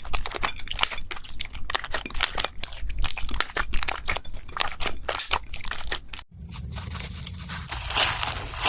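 Slime being squeezed and poked by hand, making dense crackling and popping clicks. About six seconds in, a cut leads to a different clip: a thicker, more continuous squishing crackle over a low hum.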